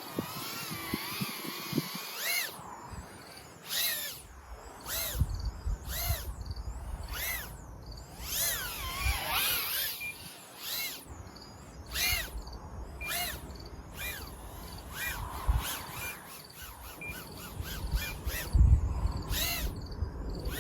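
Tiny whoop drone's small brushless motors whining in repeated throttle bursts, each one sweeping up and back down in pitch, about one a second, over a low rumble.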